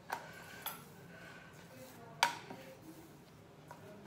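A few sharp knocks and clicks of a hand and dough working on a round rolling board, the loudest a little past halfway, over a low steady background.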